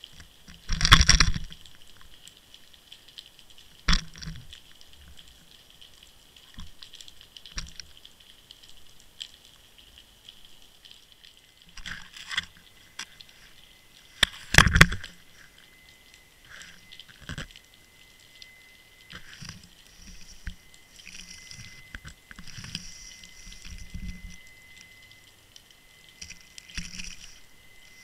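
Underwater sound from a camera on the sea bed: a low water hiss broken by a few sudden loud knocks and clunks, the biggest about a second in and again about halfway through. A faint steady high tone comes in about halfway through.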